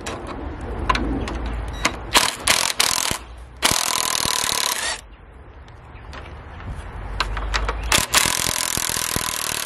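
Cordless impact driver with a socket hammering a lag screw out of a wooden fence gate's hinge. A few short bursts come about two seconds in, then a longer run with a steady whine around four seconds, and another from about eight seconds on.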